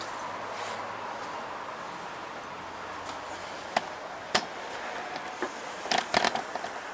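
Steady background noise with a few sharp knocks and clicks: two about four seconds in and a short cluster near the end.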